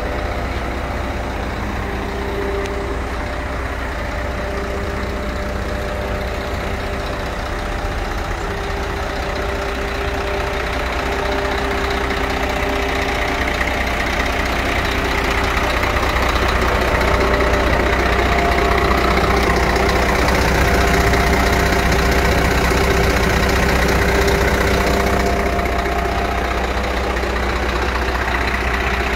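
Scania P114 truck's straight-six diesel idling steadily, growing somewhat louder from about halfway and easing back near the end.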